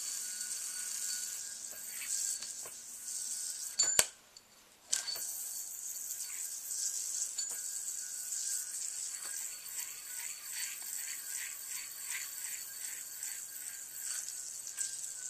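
Metal KLR yoyo spinning on its string with a steady high hiss, the string rubbing against it at about three strokes a second for a few seconds near the end. A sharp click about four seconds in is followed by about a second of near silence.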